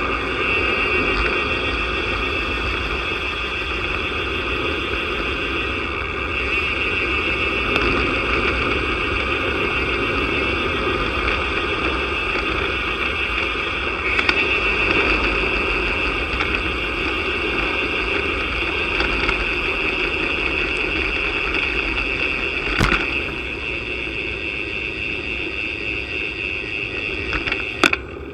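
Wind rushing over a bike-mounted camera and tyre noise during a fast road-bike descent, steady and loud, with two sharp knocks late on.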